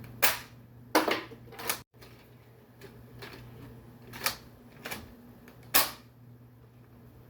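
Toy M32 grenade launcher being handled and fired: about six sharp plastic clacks and knocks at irregular intervals.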